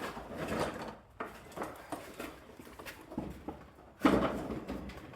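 Irregular knocks, clunks and rustles, with a louder clunk about four seconds in.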